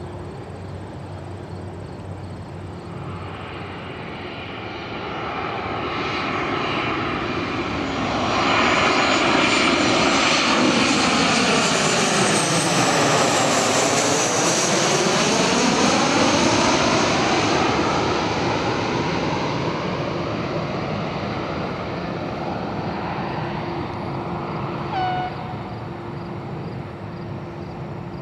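Southwest Boeing 737-700 on final approach passing low overhead. The jet noise of its CFM56 turbofans swells over several seconds, is loudest as it passes about halfway through with its pitch sweeping downward, then fades as it heads for the runway.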